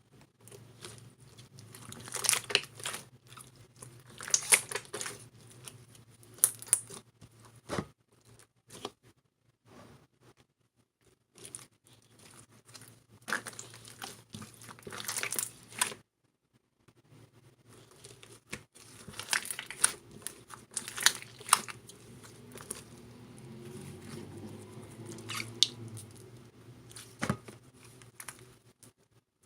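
Clear slime with clay mixed in, squeezed and stretched by hand, giving bursts of sticky crackling and popping. It pauses briefly twice.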